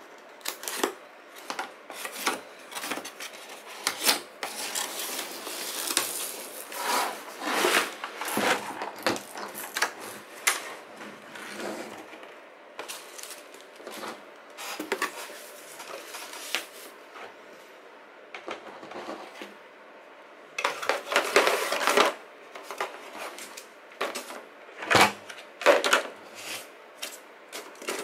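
Unboxing handling of a cardboard retail box and its packaging: a black plastic tray, cables and paper pulled out and set down, with frequent clicks, knocks and rustling. A longer, louder scraping rustle comes about three quarters of the way in.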